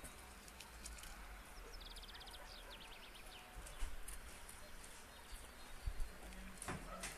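Faint outdoor ambience with a low rumble and scattered light clicks, including a short rapid run of ticks about two seconds in, followed by a few slower ticks.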